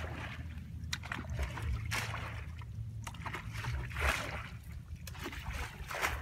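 Shallow paddy water sloshing and splashing in short swishes about every second, as someone wades through a flooded rice field, over a low steady rumble.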